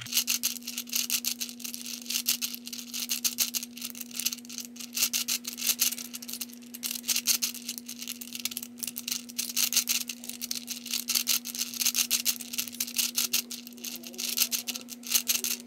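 Plastic balls of a Hungarian Rings puzzle clicking and rattling in quick, continuous succession as the two interlocking rings are turned back and forth.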